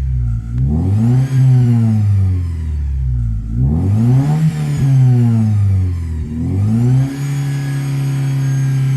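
Toyota Celica's 3S-FE four-cylinder engine revved up and let fall twice, then held at raised revs from about seven seconds in. It is being revved to bring out a noise that appears only under acceleration.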